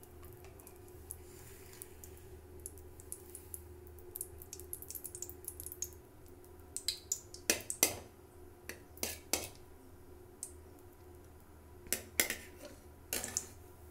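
Steel spoon scraping and clinking against an aluminium kadai while spreading melting ghee, in several short clusters through the second half, over a steady low hum.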